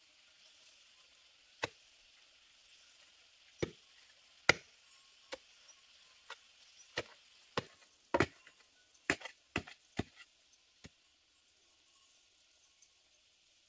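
A hand digging tool striking hard earth, about a dozen sharp knocks at an uneven pace, coming thickest in the second half and stopping well before the end.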